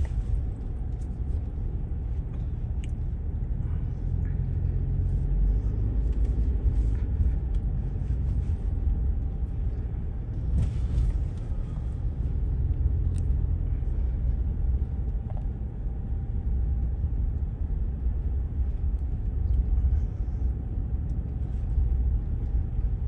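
Jeep driving over packed, rutted beach sand, heard from inside the cabin: a steady low rumble of engine and tyres.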